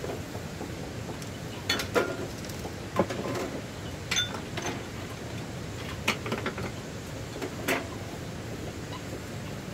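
Irregular clinks and knocks of hard objects being handled, about eight in all, between roughly two and eight seconds in, over a steady background hiss.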